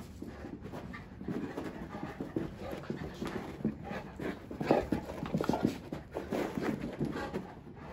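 Bullmastiff panting rapidly, starting about a second in.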